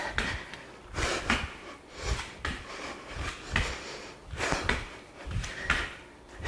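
A woman breathing hard in sharp exhales, with soft thuds of bare feet landing on a mat, about once a second, during jumping switch lunges on TRX suspension straps.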